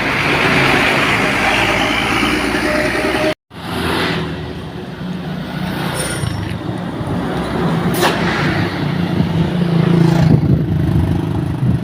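Large intercity buses on the road, their diesel engines running as they pass. A loud rushing hiss breaks off suddenly about three seconds in, and a low engine drone follows that builds up toward the end.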